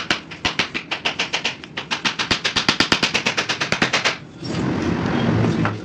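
Rapid, evenly spaced sharp clicks, about ten a second, that stop abruptly about four seconds in, followed by steady background noise.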